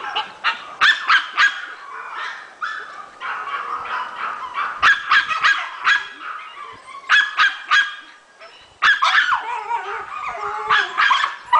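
Maltese puppy yipping in quick runs of short, high barks, with longer whining notes in between.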